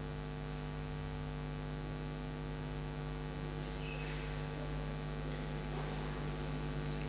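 Steady electrical mains hum with several overtones, with a faint brief noise about four seconds in and another about six seconds in.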